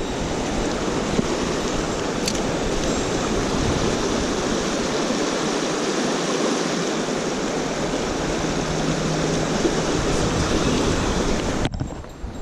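Mountain stream water running: a steady rush, with a short dip near the end.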